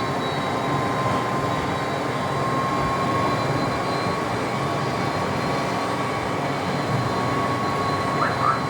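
McDonnell Douglas DC-10 jet engines running at a steady, even rush, with a thin steady whine over it.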